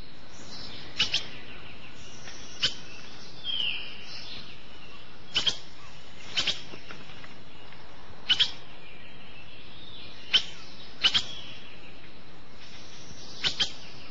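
Cartoon jungle ambience: a steady hiss with short, sharp bird chirps, mostly in pairs, every second or two, and one brief whistle about three and a half seconds in.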